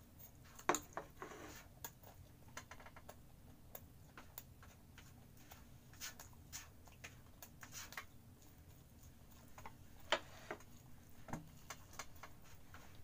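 Close-up eating noises: irregular soft clicks and smacks of chewing and mouth sounds, mixed with small clinks of a spoon and dishes. Two sharper clicks stand out, about a second in and near the ten-second mark.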